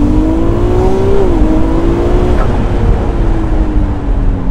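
Ferrari 296 GTS's 120-degree twin-turbo V6 under hard acceleration, heard from the open cockpit with the roof down. The engine note climbs, dips briefly about a second and a half in, then holds and slowly sinks, over a steady rush of wind and road noise.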